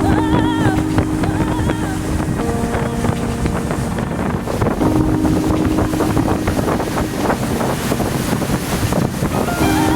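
Wind buffeting the microphone over the steady running noise of a motor yacht underway at speed.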